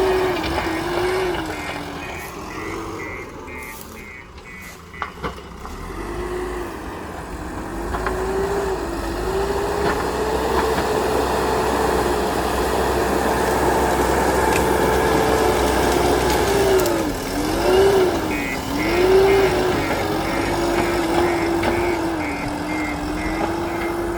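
A JCB 3DX Super backhoe loader's diesel engine working under load, its revs rising and dipping over and over as the machine digs, with a quieter, lower-revving spell a few seconds in. A fast, high-pitched beeping sounds near the start and again near the end.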